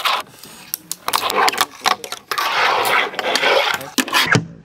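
A fingerboard being ridden on a wooden fingerboard ramp: repeated sharp clicks and clacks of the board and trucks hitting the wood, with a longer stretch of wheels rolling across the ramp in the second half.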